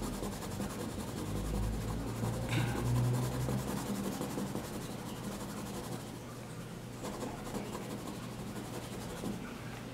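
Pencil scratching and rubbing on paper while shading a drawing, over a steady low hum.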